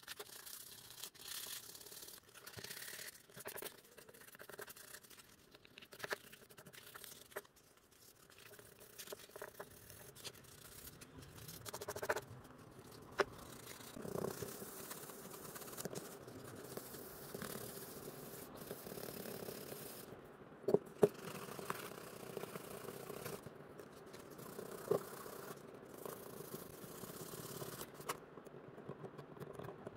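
Hand scraping and scrubbing on a small die-cast model car, with a few sharp clicks and taps.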